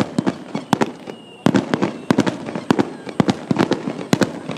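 Fireworks going off in a rapid, irregular string of sharp cracks and bangs, several a second, with a brief lull about a second in.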